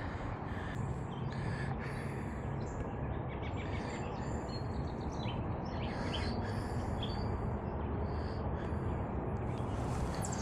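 Small birds chirping and calling irregularly over a steady background hiss of outdoor noise.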